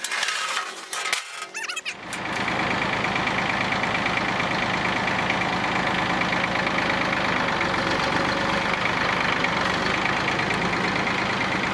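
About two seconds of choppy, broken noise, then an engine running steadily at an even speed.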